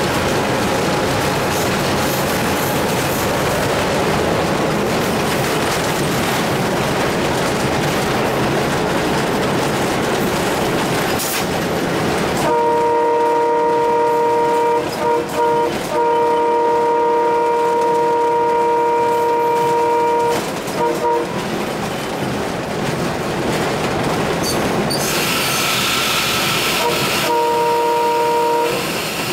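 Inside the cab of an Alco WDM3A 3100 hp diesel locomotive running at speed: steady engine and rail noise, then the locomotive's air horn sounds a long multi-tone chord for about eight seconds, broken twice for a moment. A few short toots follow, and another shorter horn blast comes near the end.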